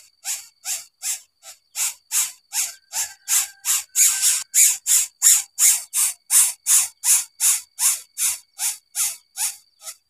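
Greater coucal nestling begging with a rasping hiss, repeated evenly about three times a second. A faint steady high whine runs behind it.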